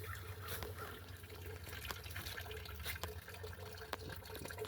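Water trickling and splashing from a small homemade fountain, with scattered drips.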